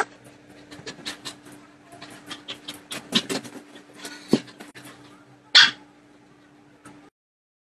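Dogs barking and yelping in short bursts, with the loudest bark about five and a half seconds in; the sound stops abruptly about seven seconds in.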